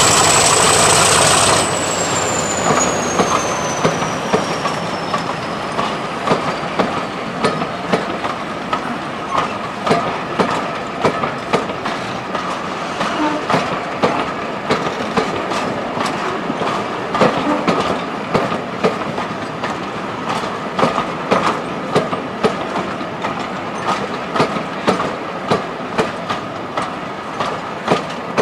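Train rolling past, its wheels clicking steadily over the rail joints, one or two clicks a second. A high whine at the start drops in pitch and fades over the first few seconds.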